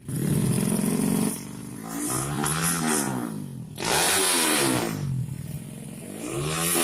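Drag-racing motorcycle engines revving hard, the pitch rising and falling several times, with the loudest high-rev stretches at the start and about four seconds in.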